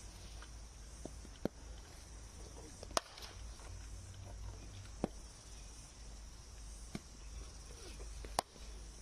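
Cricket balls being struck by bats in practice nets: about six sharp cracks at uneven intervals, the loudest about three seconds in and near the end.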